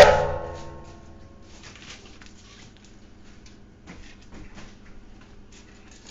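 A sharp metallic clank that rings on for about a second and a half, then a few faint light clinks and taps.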